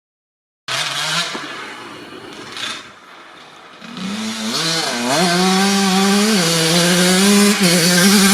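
1997 Kawasaki KX80 two-stroke single-cylinder dirt bike engine: a short rev that falls away, then the engine note climbs about four seconds in and is held high and loud, with brief dips as the throttle comes off and on.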